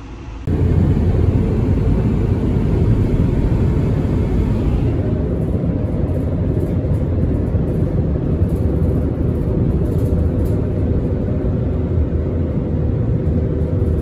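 Steady low road and engine rumble inside a moving car's cabin, starting suddenly about half a second in.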